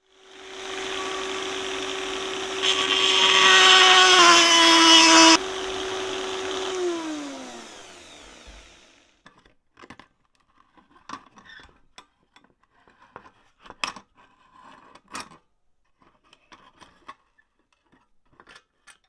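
A small electric power tool's motor runs with a steady whine, drops in pitch under load for about a second, then winds down and stops. Light clicks and knocks of metal parts follow as the brass scale mechanism is handled and lifted off its wooden base.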